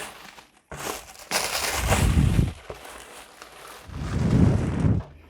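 Product packaging being handled and opened by hand: rustling and scraping in two bursts, about a second in and again about four seconds in.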